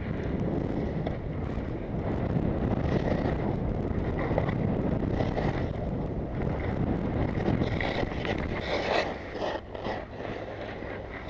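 Wind buffeting a head-mounted camera's microphone as a skier runs downhill, with the hiss of skis sliding over snow. It swells at the start as the skier picks up speed, and sharper scraping hisses from the skis come about eight to ten seconds in.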